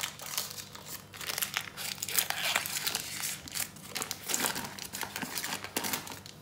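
Paper butter wrapper crinkling and tearing as it is peeled open off a block of butter, a busy run of crackles that is loudest about two seconds in.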